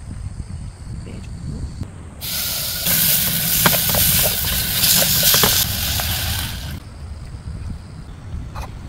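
A loud steady hiss starts about two seconds in, runs for roughly four and a half seconds with a few faint clicks, and cuts off abruptly.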